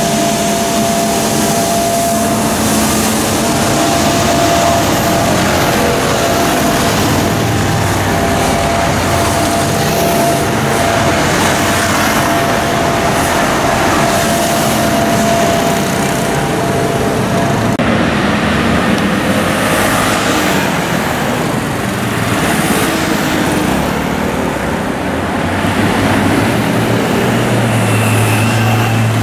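City street traffic, with motorcycle and scooter engines running and passing alongside cars. A steady whine runs through the first part and cuts off suddenly about eighteen seconds in. Near the end a low engine hum rises as a group of motorcycles and scooters rides by.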